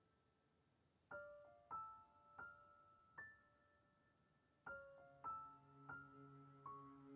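Quiet background piano music: a second of near silence, then single notes struck about every half second to a second, joined near the end by fuller chords over a low held bass.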